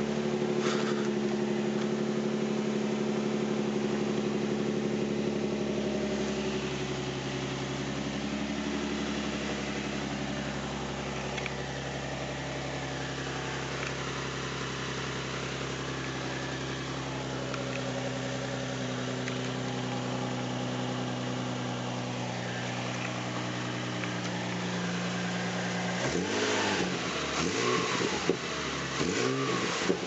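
Nissan 350Z's 3.5-litre V6 idling, its speed stepping down and back up a few times, with an exhaust leak still blowing at the joint where the right-bank manifold meets the cat despite its nuts having been tightened. The sound turns uneven near the end.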